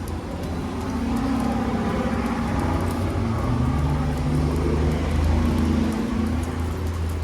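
A motor vehicle's engine running close by, growing louder from about a second in, loudest around five seconds, and easing off near the end.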